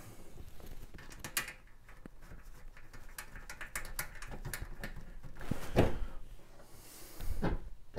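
A sheet-metal panel cover being handled while its short screws are started by hand: light irregular clicks, taps and scrapes of metal, with a sharper click about six seconds in.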